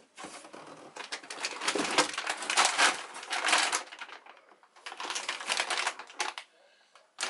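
Clear plastic packaging crinkling and rustling as a bagged item is handled, in two spells with a short lull about four seconds in.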